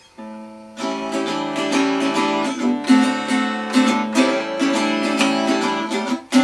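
Acoustic guitar playing a blues instrumental break: a soft first chord, then steady strummed chords from about a second in.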